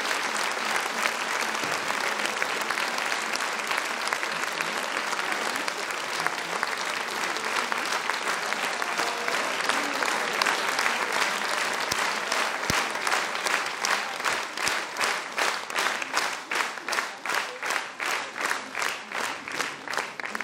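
Concert audience applauding. About two-thirds of the way through, the scattered clapping falls into rhythmic unison clapping, about two claps a second.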